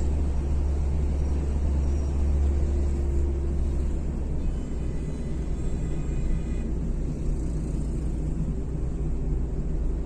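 Steady low rumble of a car on the move, engine and road noise heard from inside the cabin, easing slightly about halfway through.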